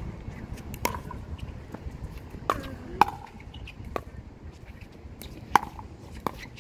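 Pickleball rally: paddles striking the hollow plastic ball, about six sharp pops at uneven spacing roughly a second apart, some with a short ringing tone.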